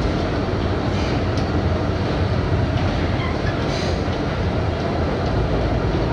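R32 subway car running through a tunnel, heard from inside the front car: a steady low rumble of wheels on rail, with a few faint clicks over rail joints.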